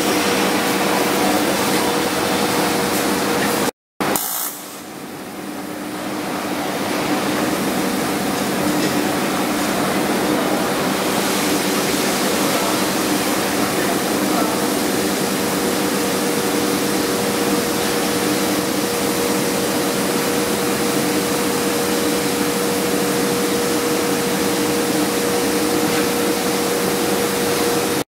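Steady hiss and constant hum of TIG welding on a steel pipe. The sound cuts out suddenly about four seconds in and swells back up over the next few seconds.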